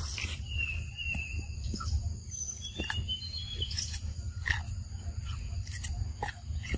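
A long-tailed macaque eating close by, with scattered clicks and crunches of chewing. Short high chirps come in now and then over a steady low rumble.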